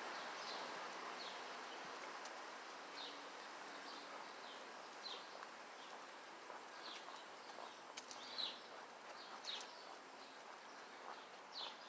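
Faint, scattered short bird chirps, each a quick downward slide, over a steady outdoor hiss.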